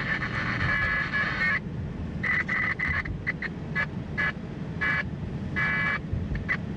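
Garbled, tinny bursts of two-way radio transmission from an emergency scanner, coming and going irregularly with a long burst at the start and a run of short blips in the middle. Under them runs the steady low road noise of a car driving on the freeway.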